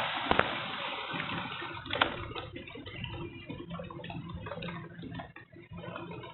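Heavy rain pouring down, a dense hiss that turns into a patchier spatter of drops after about two seconds, with a couple of sharp knocks.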